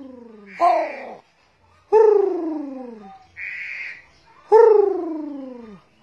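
A caged pet crow calling: long drawn-out calls that slide steadily down in pitch, two full ones about two and a half seconds apart, with a short call and a short harsh rasp in between.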